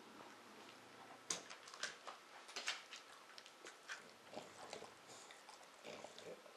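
Bulldog chewing and mouthing a furry toy: irregular short clicks and snaps of its jaws, the first sharp one about a second and a half in.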